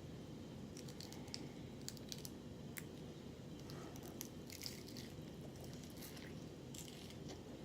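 Eating sounds from someone chewing rotisserie chicken: scattered wet smacks and clicks of the mouth and lips over a steady low hum.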